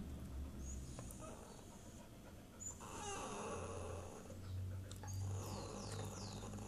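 Dog whining for food: a wavering whine, then several short high-pitched falling whimpers near the end.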